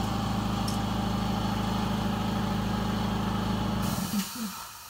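Air compressor running with a steady hum, then cutting out about four seconds in with a hiss of released air.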